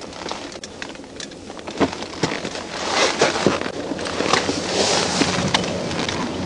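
Close rustling and crackling handling noise on a clip-on microphone, with scattered sharp clicks, starting abruptly and growing louder a few seconds in.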